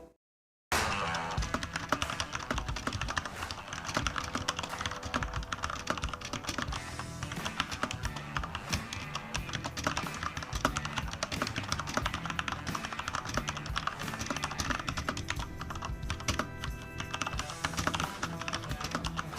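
Fast, continuous typing on a Corsair K70 LUX RGB mechanical keyboard with Cherry MX switches: a dense clatter of keystrokes that begins just under a second in. Its open, plateless-looking chassis leaves the switches relatively loud with no plate ping. Background music plays underneath.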